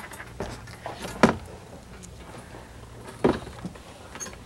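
Animal carriers being handled and set down on a table: scattered knocks and rattles, with a sharp knock about a second in and another clunk a little after three seconds.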